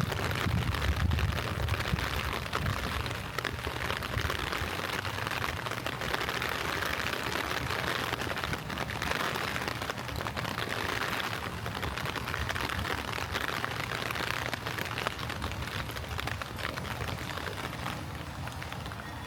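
Steady hiss of light rain falling. A low rumble underneath fades away over the first few seconds.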